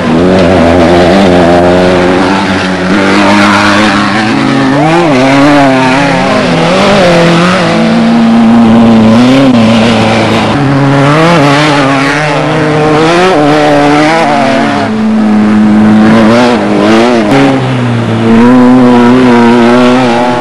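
Off-road desert race vehicle's engine running hard, its pitch climbing and dropping again and again as the throttle and gears change.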